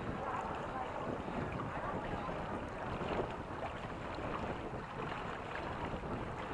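Steady rush of wind buffeting the microphone, with water splashing and washing along the hulls of a sailing catamaran under way.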